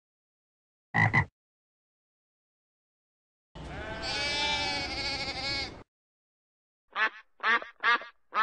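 A sheep bleats once, a long wavering bleat of about two seconds, after a short call about a second in. Near the end a duck quacks about four times in quick succession.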